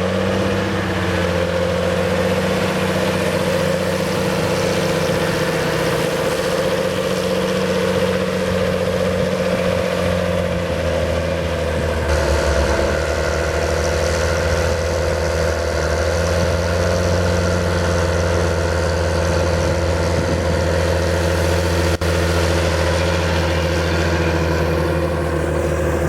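John Deere 7720 tractor's six-cylinder diesel engine running steadily while pushing silage on a clamp; its note changes and grows a little louder about eleven to twelve seconds in.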